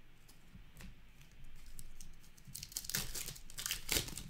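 Foil wrapper of an Upper Deck hockey card pack crinkling and tearing as it is ripped open by hand. A few light clicks of cards being handled come first. About halfway through, the crackle turns dense and loud, loudest near the end.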